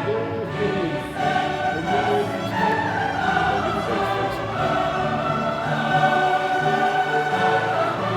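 Classical choral music with orchestra: a choir singing long held notes.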